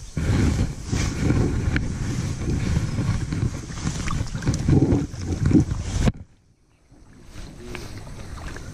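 Rumbling wind buffeting and handling noise on the camera microphone, loud and uneven, cutting off suddenly about six seconds in and then continuing faintly.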